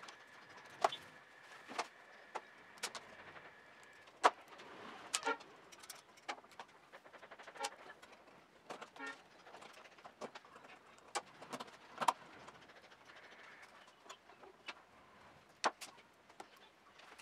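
Small screws and hard plastic parts of a 3D-printed motor mount and brushless motor clicking and knocking as they are handled and fitted together on a wooden table. The clicks are irregular and sharp, with a few short runs of quick ticks.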